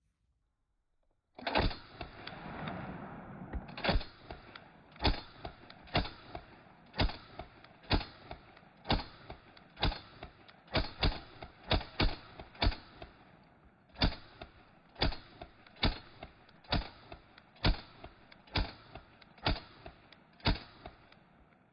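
Thompson M1928A1 submachine gun firing .45 ACP in semi-automatic: about twenty single shots at roughly one a second, with a brief pause after about a dozen.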